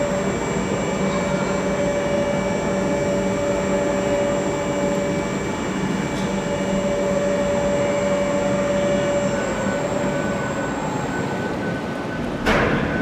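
Overhead travelling crane's electric drive whining steadily over the noise of the hall, carrying a suspended EF65 electric locomotive body; the whine winds down and stops about ten seconds in. A faint high pulsing tone follows, and a short loud burst of noise comes near the end.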